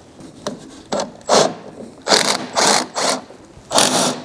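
Ratchet wrench clicking in a run of short strokes, about five strong ones, as bolts on the drive-shaft coupling at the engine flywheel are backed out.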